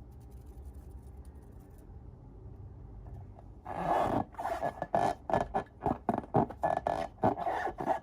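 Faint room noise, then about two-thirds of the way in, slime being squished and worked by hand: a rapid, irregular run of crackling squishes.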